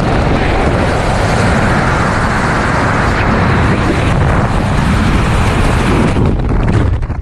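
Loud, steady rush of freefall wind buffeting a skydiver's helmet-camera microphone. It thins out near the end as the jumper waves off and his parachute deploys.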